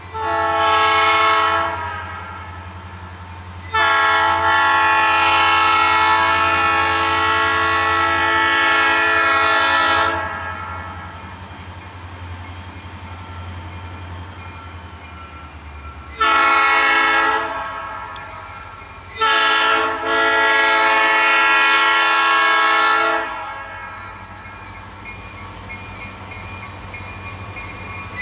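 EMD GP40 diesel locomotive's air horn sounding the grade-crossing signal: a long blast, a longer one, a short one, then a final long blast after a brief break, each a steady multi-note chord, warning the crossing ahead.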